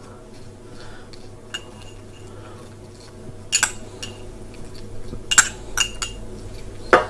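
Metal spoon clinking against a small glass bowl while scooping out green peas: several separate light clinks, more of them in the second half.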